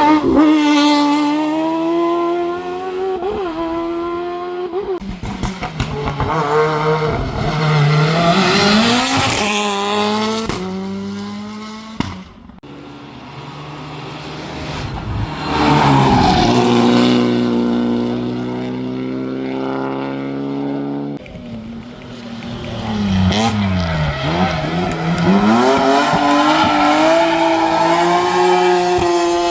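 Race car engines at high revs, pitch climbing and dropping again and again through gear changes. The sound breaks off suddenly twice and picks up again.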